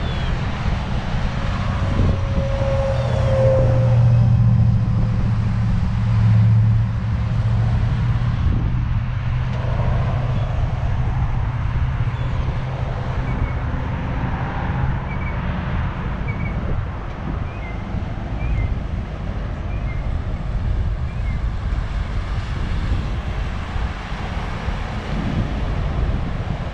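Road traffic passing: car and pickup engines running, with a deep engine drone that is strongest in the first half, and wind buffeting the microphone.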